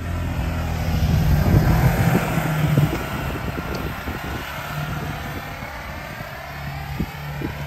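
Side-by-side UTV engine running as it drives across a lawn, louder as it passes close about one and a half to three seconds in, then easing off as it moves away.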